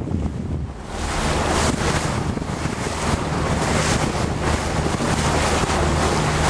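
Wind buffeting the microphone on a moving boat, over a steady low engine hum and the rush of water along the hull; the wind noise grows louder about a second in.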